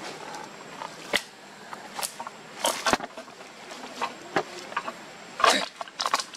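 A wire-mesh trap with a stick frame being stamped flat underfoot: a string of sharp cracks and crunches, irregularly spaced, the loudest near the end.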